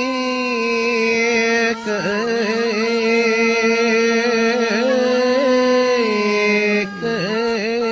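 Traditional music: a single melodic line of long held notes with small ornaments and slides, breaking off briefly twice, about two seconds in and near the end.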